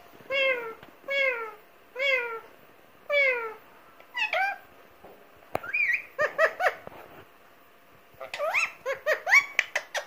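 Indian ringneck parakeet calling: a string of drawn-out calls that fall in pitch, about one a second, followed in the second half by two bursts of quicker, choppier chattering notes.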